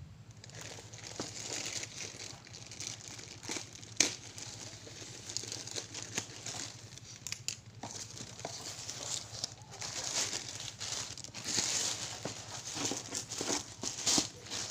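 Plastic courier mailer bag crinkling and rustling as it is handled and opened, with a sharp snap about four seconds in. The rustling grows louder in the last few seconds as a cardboard box slides out of the bag.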